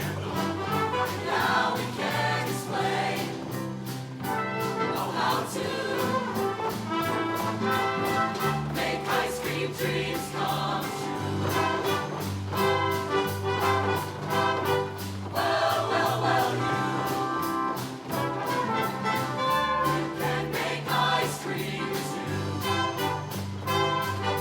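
Show choir singing with a live band of brass, bass and drums, a continuous upbeat number with a steady beat.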